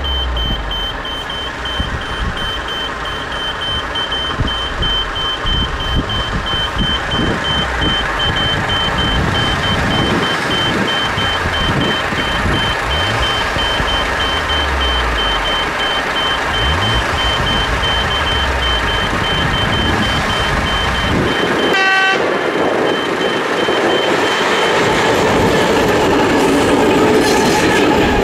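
Level-crossing warning signal beeping in a steady, rapid pulse over the low rumble of an approaching diesel freight locomotive. About 22 seconds in the locomotive gives a short horn toot, then its rumble grows louder as it reaches the crossing near the end.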